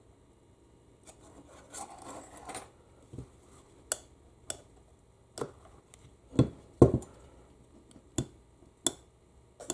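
Small metal parts and a hand tool clicking and scraping as a U140 automatic transmission is taken apart: some light scraping first, then a dozen or so sharp separate clicks and taps, the loudest two about two-thirds of the way in.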